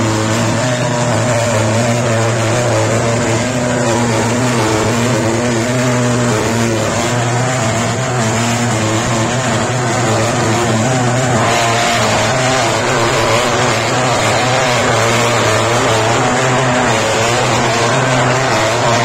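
Handheld pulse-jet thermal fogging machine running continuously while it sprays insecticide fog, making a loud, steady drone. A brighter hiss joins about halfway through.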